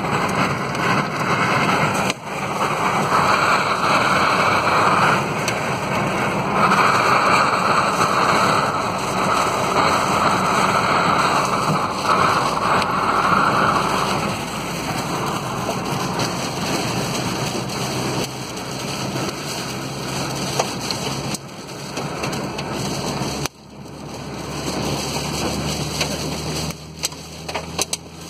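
Heavy storm rain and hail pelting a car's roof and windshield, heard from inside the cabin, over the car's road noise. The downpour is heaviest through the first half and lighter later on.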